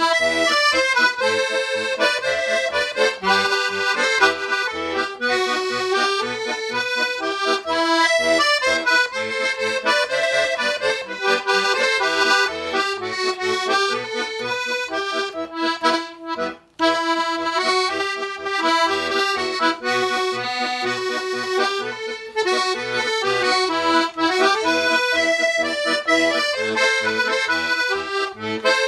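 Russian garmon (button accordion) playing a folk tune: a melody over a steady pulse of bass and chord notes, with a brief break about halfway through.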